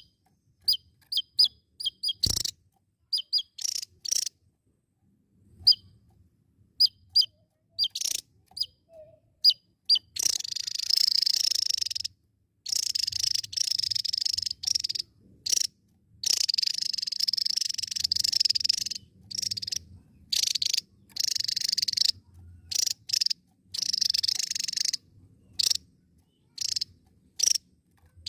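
Javan tesia singing: a string of short, sharp high chirps, then, from about a third of the way in, repeated bursts of rapid high trilling song, each lasting one to two seconds with short pauses between.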